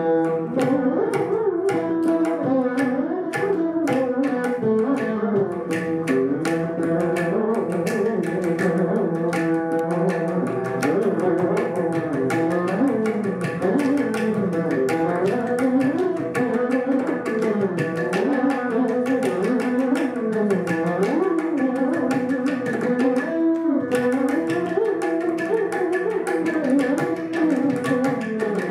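Veena duet playing a Carnatic melody with sliding, bending notes, accompanied by steady mridangam and ghatam strokes.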